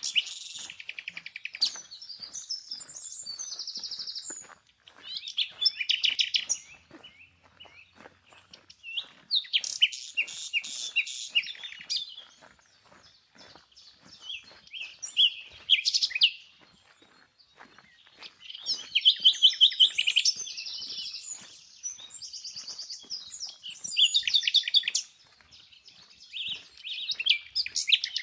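A songbird singing repeated high, warbling phrases with trills, each lasting one to three seconds and separated by short pauses.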